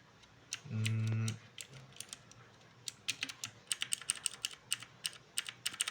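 Keys of a GamePower Warlock 87-key gaming keyboard being pressed: a few scattered keystrokes, then a rapid flurry of key clicks from about three seconds in. There is a brief hum of a voice about a second in.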